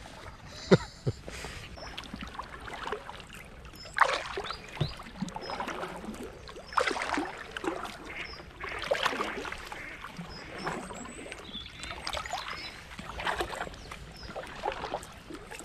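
Kayak paddle strokes in calm canal water: the blades dip and pull, then lift out dripping, giving irregular splashes and trickles every couple of seconds.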